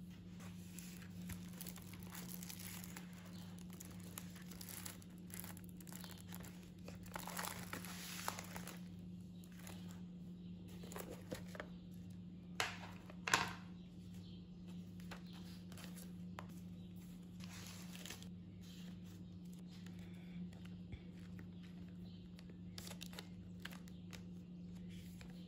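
Paper and packaging rustling and crinkling as journaling supplies (cards, envelopes, washi tape) are handled, with two sharper crinkles about halfway through. A steady low hum sits underneath.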